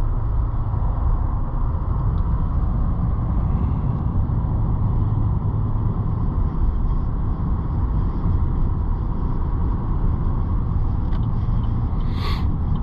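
Steady low road and engine noise inside a moving car, with a short sharp noise near the end.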